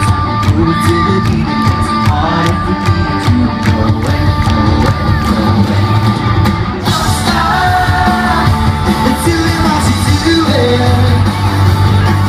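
Live rock band playing a loud, up-tempo song with drums, electric guitars and lead singing, heard from the audience. About seven seconds in the sound turns brighter and fuller as the song builds.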